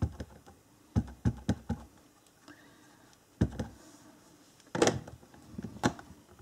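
Stamping tools handled on a worktable: an ink pad dabbed against a clear stamp in a quick run of about four taps about a second in, then a single thunk and two sharper clicks as the stamp is pressed onto card stock.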